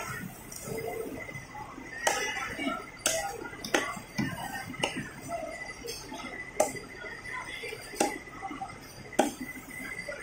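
A long curved cleaver chopping through a tuna head onto a wooden log chopping block: a series of sharp chops, roughly one a second.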